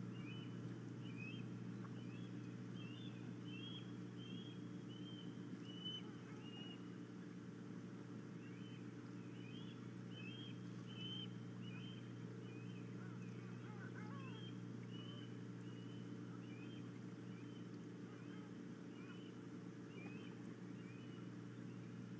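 Osprey calling: a long series of short, high whistled chirps, about two a second, with a pause a few seconds in and another about halfway through, over a steady low hum.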